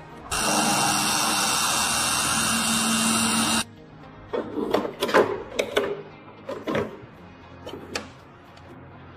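A power tool runs steadily for about three seconds and cuts off abruptly, followed by a handful of short knocks and clatters, over background music.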